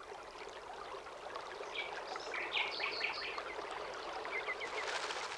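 Natural outdoor ambience: a steady rush of flowing water, with groups of short, high chirps joining in from about two seconds in.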